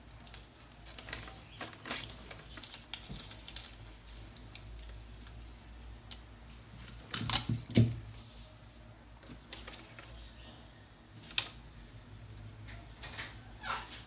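Paper sewing-pattern pieces being folded and stuck together by hand: scattered soft clicks and paper rustles, with a louder burst of crackling about seven seconds in and a single sharp click near eleven seconds.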